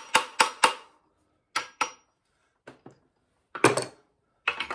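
Hammer tapping on the connecting rod bolts of a 1928 Ford Model A four-cylinder engine, sharp metal-on-metal strikes. There is a quick run of three in the first second, then a few more spaced out, then short bursts of clatter near the end. The blows knock the rod caps loose so the pistons can be driven out.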